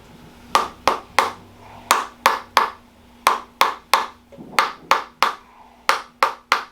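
Chiropractic adjusting instrument clicking in quick groups of three sharp clicks about a third of a second apart, five groups in all, as it delivers quick thrusts to correct a pelvic twist.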